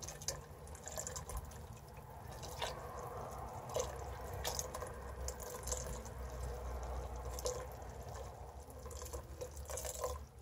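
Lye water pouring in a thin, steady trickle into a stainless steel stock pot of melted soap oils, with a few light clicks as a silicone spatula stirs the mixture.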